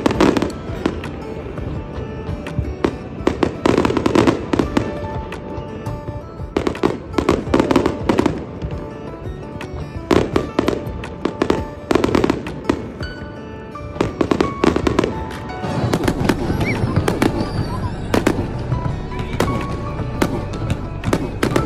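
An aerial fireworks display: shells bursting in loud bangs every second or two, with crackling between them. Music plays underneath.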